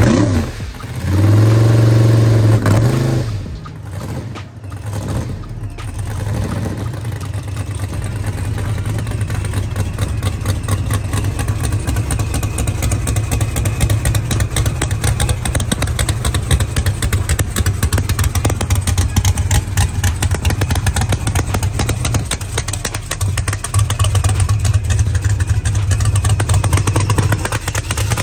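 A race-built Chevrolet Camaro SS's V8 runs loud and steady for the first three seconds or so. It dips briefly, then settles into a steady, choppy idle.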